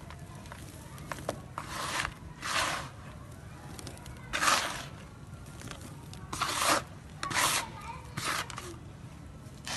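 Dry grey sand-cement crumbled and rubbed between the hands in a bowl: about six short crumbling, rustling bursts, each about half a second, with a few light clicks between.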